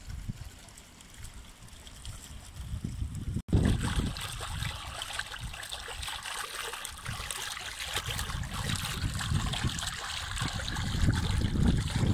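Water splashing and trickling into a swimming pool from a turtle-statue fountain at the pool's edge, louder from about three and a half seconds in, over low gusty rumbling.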